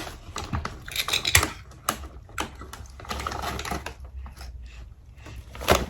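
Irregular clicks, taps and crinkles of a drink container being handled and worked open by hand, with a sharper, louder click near the end.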